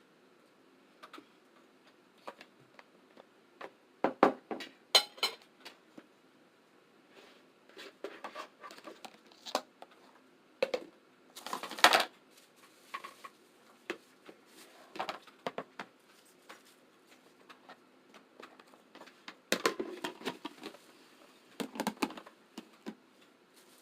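Mukbang eating sounds from a seafood boil: irregular clicks, crackles and smacks of food being handled and chewed, with louder clusters about four, twelve and twenty seconds in.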